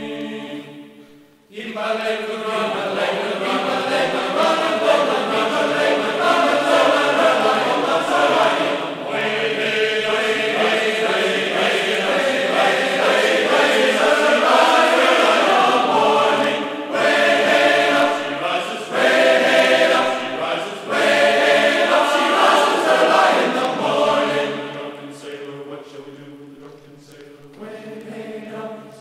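Background music: a group of voices singing a sea shanty in chorus. It drops out briefly about a second in and grows quieter near the end.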